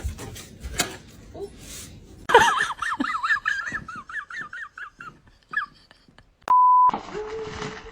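A dog whining in a quick run of high-pitched, wavering yips for about three seconds, then a short electronic beep.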